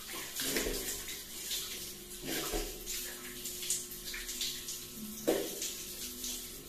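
Overhead shower running, its spray hissing and splashing over a person washing under it.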